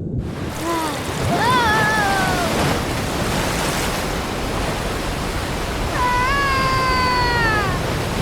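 Cartoon soundtrack of steady rushing water noise, with drawn-out vocal calls that fall in pitch: a short one about a second in, another around two seconds in, and a longer one from about six seconds that drops away near the end.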